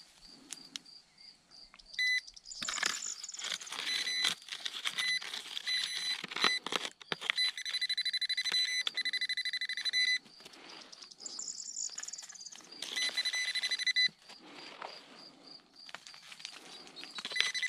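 Handheld metal detector pinpointer sounding in repeated short bursts of a high electronic tone, with a stretch of rapid pulsing in the middle, as it is pushed into the soil: the alert for metal in the dirt. Knocks and scrapes of gloved hands and the probe in the loose earth come between the bursts.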